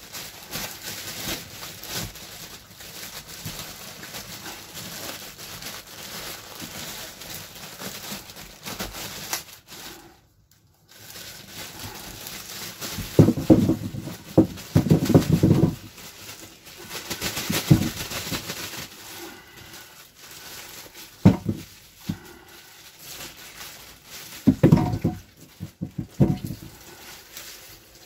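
Water running from a kitchen tap into a sink while potatoes are washed and handled, with rustling and several knocks and thumps. The loudest of these come a little past the middle.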